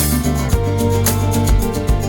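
Music led by guitar, with a steady beat.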